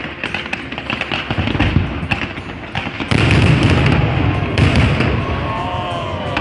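Fireworks display: dense crackling and popping with repeated low booms of shells bursting, loudest from about three seconds in.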